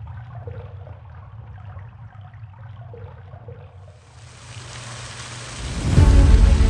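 Water splashing and dribbling sound effects over a low steady drone, swelling from about four seconds into a loud rush of spraying water. Music comes in near the end.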